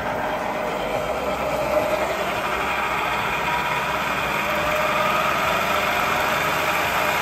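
ZF 63 V-drive marine transmission with newly replaced clutches spinning on a test dyno: a steady mechanical whine with several even tones, growing slightly louder. It runs nice and quiet, the sign that the rebuilt gearbox passes its test.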